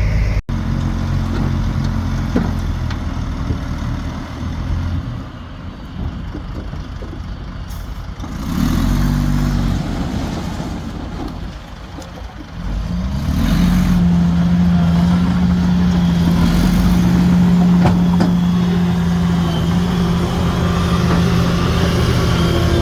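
Heavy diesel earthmoving machinery running. The engine sound sags quieter for several seconds, then about halfway through it rises into a loud, steady drone held at high revs.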